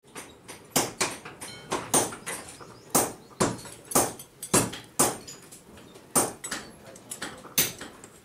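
Hand hammer blows on red-hot steel on an anvil, forging a ball peen hammer head. Sharp metallic strikes with a brief ring come irregularly, often in quick pairs, about one and a half a second, with lighter taps between.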